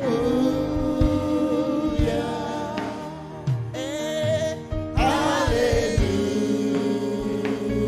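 Live gospel worship music: voices hold long, wavering sung notes over a sustained band accompaniment, with a few sharp drum-like hits.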